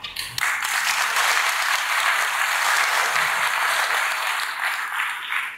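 Audience applauding: steady, dense clapping that begins just after the start and stops near the end.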